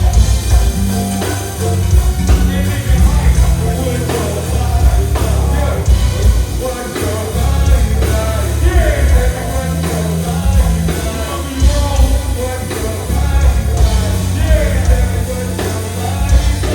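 Loud music with a heavy, pulsing bass line and a voice singing over it.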